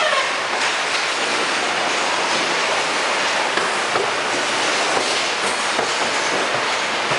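Steady machinery din of a car assembly line, a continuous hiss and rumble with occasional light knocks.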